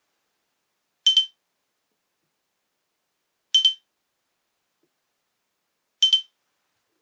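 Nokia E63 ringtone of short, high-pitched electronic double beeps, sounding three times about two and a half seconds apart.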